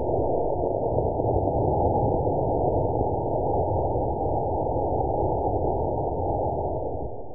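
Estes B6-6 model rocket motor firing on a static test stand: a steady rushing roar of exhaust that begins sharply and eases a little near the end. It plays slowed down, so the roar is deep and muffled, with no high hiss.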